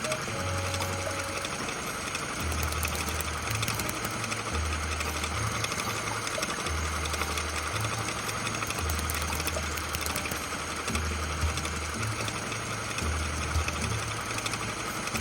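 Background music with a bass line that steps between a few low notes every one to two seconds over a dense, busy high texture.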